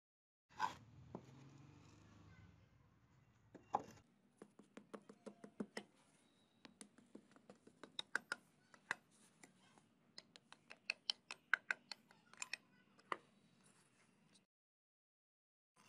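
Sand mould broken open: a sudden thump and sand sliding as the frame comes off, then a long run of quick, irregular clicks and crackles as the hot, smoking brass casting is uncovered in the sand.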